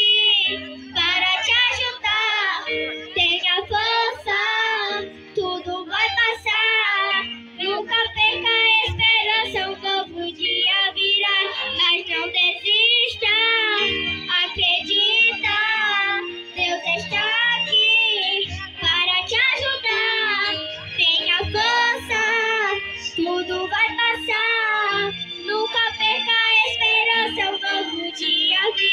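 Recorded song with a high solo singing voice, full of vibrato, over backing music with a steady bass, played over a loudspeaker.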